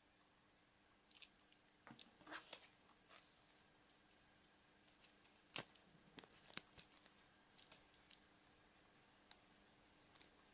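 Faint handling of a surprise egg's plastic toy capsule and wrapper: scattered small clicks and crinkles, with a few sharper plastic snaps about two and a half, five and a half and six and a half seconds in.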